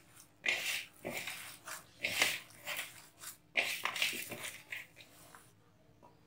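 A hand squeezing and kneading a wet mix of minced raw chicken, grated cheddar and spices in a glass bowl, making squelching, squishing sounds. They come in irregular bursts and stop about five and a half seconds in.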